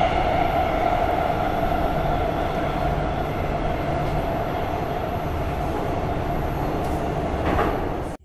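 AV-8 Harrier jet in flight: a steady engine roar with a high whine over it. The roar eases a little in the middle and cuts off suddenly near the end.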